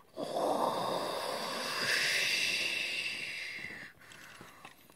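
A person making a jet-plane whoosh with the mouth, a breathy hiss that swells to a peak about halfway through and fades out after nearly four seconds, while flying a toy F-16 fighter by hand.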